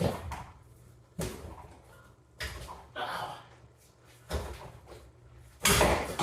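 Heavy knocks, about six of them roughly a second or so apart, with the loudest near the end. They come from work to free a rust-seized CV axle stub on a 2013 VW Tiguan.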